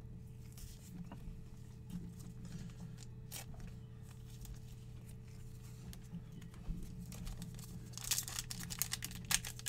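A trading card pack's wrapper being torn open and crinkled near the end, loud against a steady low hum with faint soft handling ticks before it.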